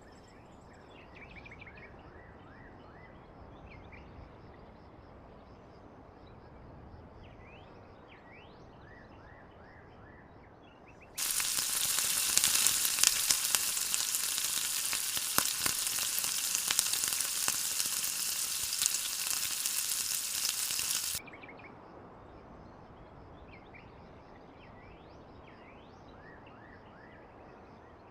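Food frying in hot oil, a loud crackling sizzle lasting about ten seconds that starts and cuts off abruptly. Faint chirps sound in the quiet before and after it.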